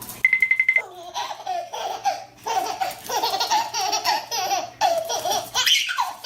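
A young child laughing in repeated bursts. It is preceded near the start by a quick, high trill of about eight rapid beeps lasting half a second.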